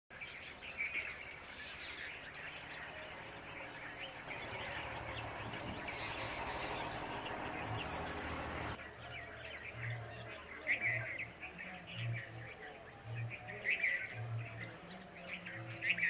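Red-vented bulbuls chirping: short, high calls every second or few, over a steady hiss that drops away suddenly about nine seconds in.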